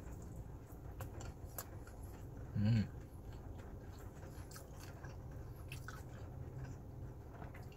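A person chewing and biting into a rolled piece of pepperoni pizza, with scattered faint crunches from the crisp pastry. A short closed-mouth hum comes about two and a half seconds in, over a low steady rumble.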